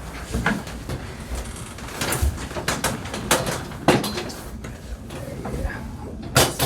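A patient turning over on a chiropractic drop table: a series of sharp knocks and clunks from the table, with shuffling between them and the loudest knock near the end.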